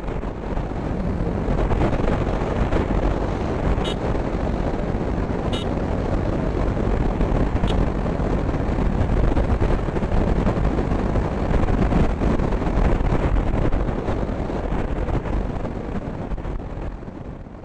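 Wind rushing over the action camera's microphone on a Yamaha R15 V3 motorcycle riding at speed, with engine and road noise underneath. It swells up over the first seconds and fades away near the end.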